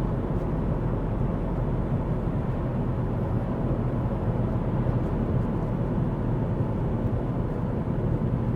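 Steady road and engine noise inside the cabin of a moving Ford Focus, a low, even rumble with no changes.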